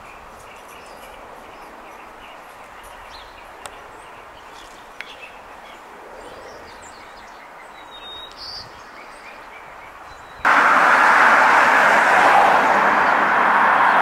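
Quiet outdoor background with a few faint bird chirps. About ten seconds in, a loud, steady rushing noise starts abruptly and carries on.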